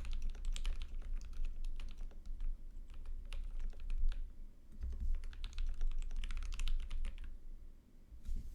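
Fast typing on a Maja mechanical keyboard with lubed NovelKeys Cream linear switches, a brass plate, an aluminium case and PBT keycaps: dense runs of key clicks, a short pause a little after four seconds, then another quick run that stops about seven seconds in.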